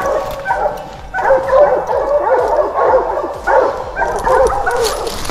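Several hunting dogs barking and baying together without let-up: the chorus of bear dogs that have a bear treed.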